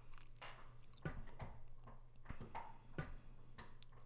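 Faint room tone: a low steady hum with a few soft, scattered clicks.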